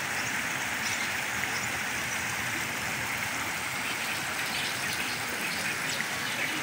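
Steady rushing of floodwater from an overflowing creek running across the ground.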